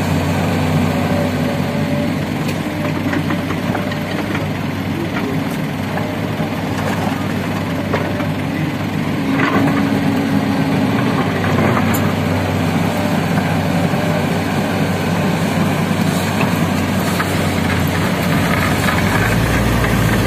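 Diesel engine of a SANY crawler excavator running steadily as it loads soil into a dump truck, with a few knocks of earth and rock dropping into the truck's steel bed. A deeper rumble swells near the end.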